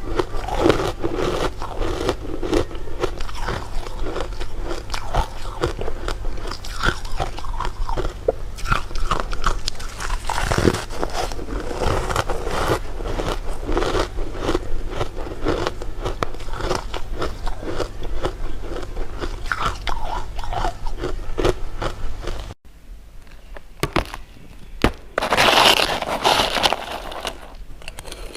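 Close-miked eating: dense crunching bites and chewing with many small clicks. About three-quarters through, the sound cuts abruptly to a quieter stretch, followed by one loud crunching bite.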